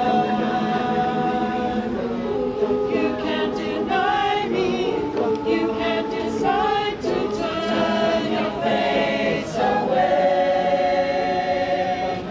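Choir singing in harmony, holding long sustained chords.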